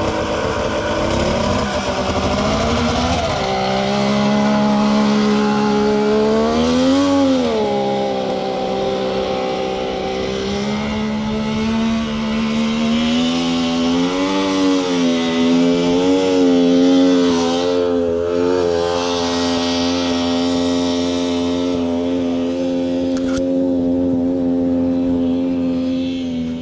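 1993 Polaris 650 triple two-stroke snowmobile engine in a go-kart buggy running at a steady pitch. It revs up and back down briefly about 7 seconds in and a few more times in the middle, then dies away at the end. Its CVT drive belt is slipping.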